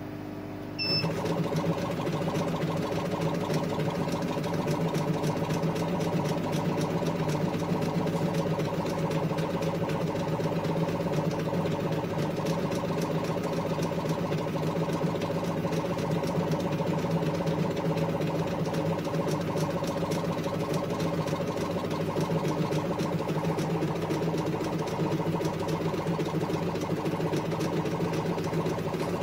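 Laser engraver starting a raster engraving job on a glass bottle in a rotary attachment. About a second in, its motion system starts up: the head runs rapidly back and forth while the stepper motors drive it and turn the bottle. It makes a steady whine of several tones with fast, dense ticking, over the steady noise of the air-assist compressor and fume extractor.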